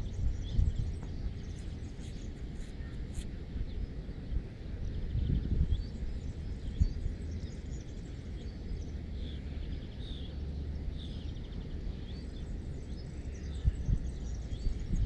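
Outdoor riverside ambience: a low, uneven rumble, with small birds chirping faintly now and then.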